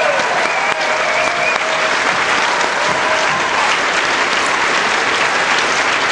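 Audience applauding steadily, with a few cheers in the first second or two.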